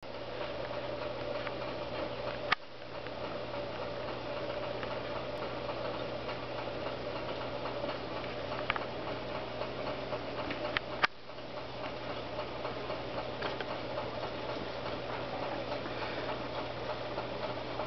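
A steady low hum with a fainter higher tone over even background noise, broken twice by a sharp click, about two and a half seconds in and again about eleven seconds in, each followed by a brief drop in the sound.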